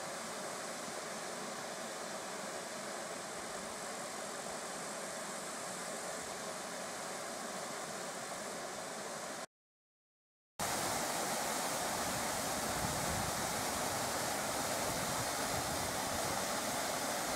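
Waterfall rushing steadily over rock, softer at first. About halfway through it cuts to a second of dead silence, then comes back louder and fuller, close to the falls.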